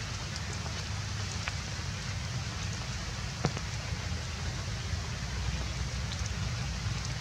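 Steady rain falling on the forest leaves, with a low rumble underneath and a few sharp clicks, the clearest about three and a half seconds in.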